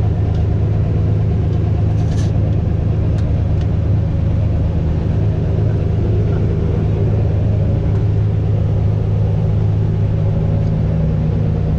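Fishing boat's engine running steadily under way, a loud, even low drone that does not change. A few faint clicks sound over it.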